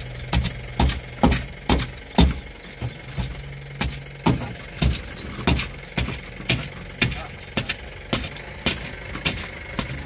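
Repeated knocks and crackles as a hand pushes and strikes the shattered windshield glass of a JCB 3DX backhoe loader's cab, about two a second, to break it out of the frame. A steady low hum runs underneath.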